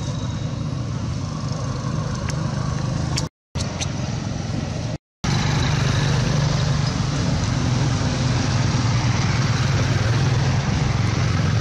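Steady background vehicle noise, a low hum under an even hiss, cutting out to silence twice for a moment about a third of the way in and again near halfway.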